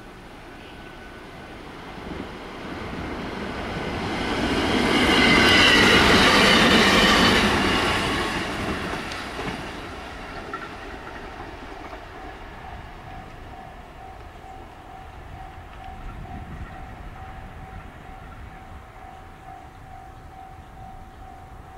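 A JR West electric multiple-unit train passes on snowy track. Its wheels and running gear rise to a loud peak about five to seven seconds in, then fade away by about ten seconds. After that a faint, evenly pulsing tone carries on.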